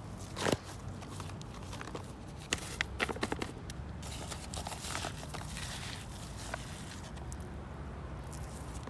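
A hand scooping and pressing loose potting soil in a black plastic grow bag: scattered rustles and crackles of soil and plastic, loudest about half a second in and again around three seconds in.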